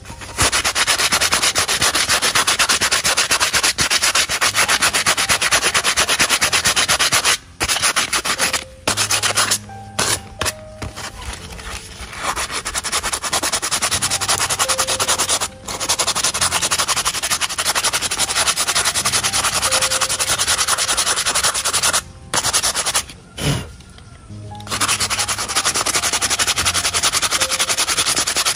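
Sanding of a coconut shell, a fast even scraping in long runs broken by a few short pauses.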